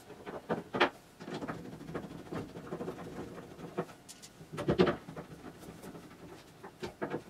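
Hand screwdriver driving a screw to refasten a small hold tab on the CNC machine's frame: faint scratchy ticks and small clicks, with a louder knock at about five seconds.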